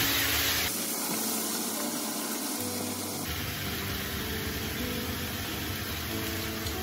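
Frying pan of vegetables and meat hissing and simmering on a gas burner, steam coming off where water has been added to the hot pan, over a steady low hum.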